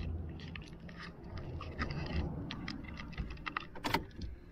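Scattered light clicks and taps of hands and keys being handled, with one sharper click about four seconds in as the car key is turned in the ignition switch.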